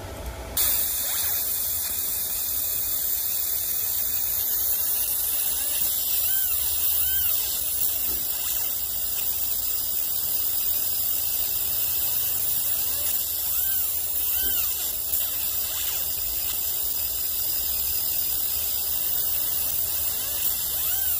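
Fiber laser marking machine engraving metal: a steady high-pitched hiss and whine starts about half a second in as the pulsed beam begins ablating the surface, over the low hum of the machine.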